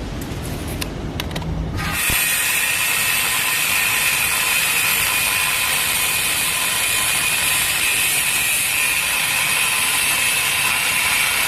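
Steel metalworking on a manhole cover: a few light clicks, then about two seconds in a loud, steady harsh hiss with a faint whine sets in and keeps going.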